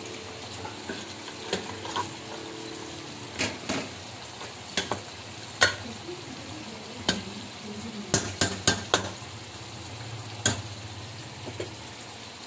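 Potatoes and cauliflower sizzling in an aluminium pot while a spoon stirs them, scraping and knocking against the pot every second or two, with a quick run of knocks about eight to nine seconds in.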